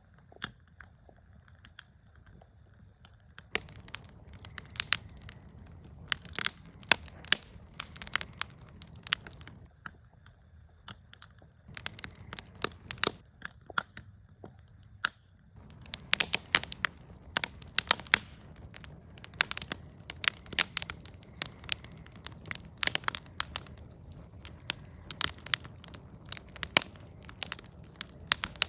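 Wood campfire crackling, with many sharp pops and snaps over a low steady rush of flame. It is sparse for the first few seconds, then crackles steadily and busiest in the second half.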